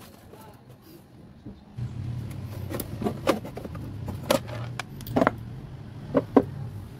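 Hard plastic battery cover of a GPX Drone 150 scooter being worked loose and lifted out by hand, knocking against the frame in a series of sharp clacks. A steady low engine hum starts about two seconds in.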